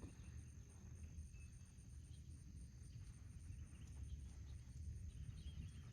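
Faint outdoor ambience: a low wind rumble on the microphone and an insect, likely a cricket, chirping high and evenly, about seven pulses a second.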